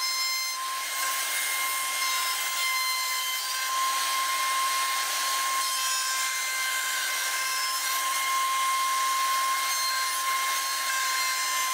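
Table-mounted router running steadily with a 45-degree bevel bit, cutting a bevel along the edge of a 1/4-inch MDF panel: a steady high whine over the hiss of the cut.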